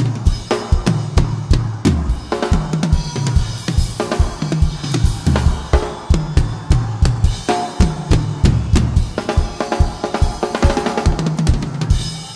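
Live rock band playing a steady funk-rock groove, the drum kit to the fore with kick drum, snare and cymbals over a repeating bass line and other band instruments.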